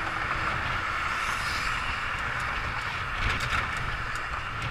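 Wind rushing over the microphone of a camera on a moving bicycle, with the steady hum of car traffic on the adjacent bridge roadway.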